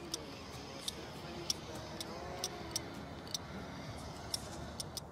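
A string of sharp, high-pitched clicks at uneven intervals, roughly two a second, over a faint steady background.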